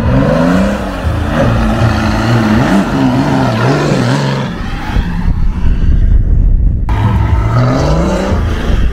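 Off-road vehicle engine revving, its pitch rising and falling again and again under load. About five seconds in the sound goes dull, and it snaps back sharply near seven seconds.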